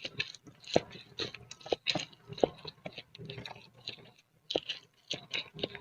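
Close-miked chewing of a mouthful of boiled instant noodles, with a quick, irregular run of wet mouth clicks and smacks.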